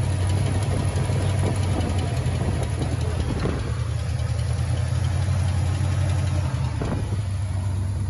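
1972 Buick GS 455's big-block V8 running steadily at an even speed, an engine the owners believe has a serious internal fault and needs replacing.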